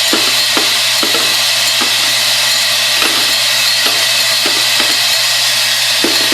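Vibratory brass sorting machine running, separating .380 from .223 cartridge cases: a steady hum from the vibratory drive under a continuous jingling clatter of brass cases rattling along the feeder, with irregular sharper clinks.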